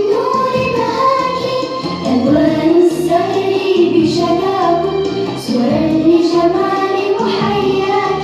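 A song sung in a child's voice over instrumental backing music, the melody held and gliding in long sung phrases.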